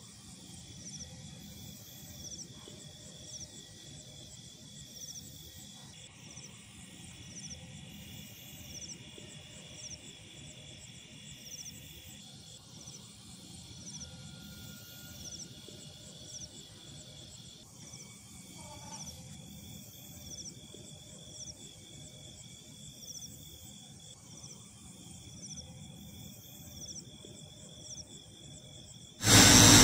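Crickets chirping steadily in a regular repeating pattern. Right at the end a buffing wheel starts running loudly.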